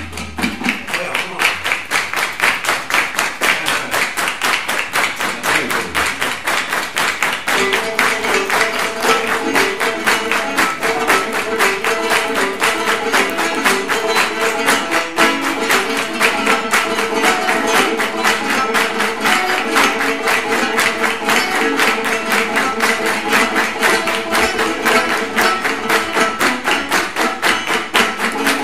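Live acoustic band music: five-string banjo picking over hand drums and steady hand clapping, in a fast, even rhythm. About seven seconds in, a repeating melodic figure joins.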